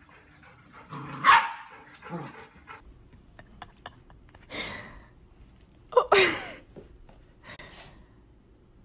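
A puppy barks sharply about a second in. Several more short loud cries follow, the loudest a little past the middle with a falling pitch.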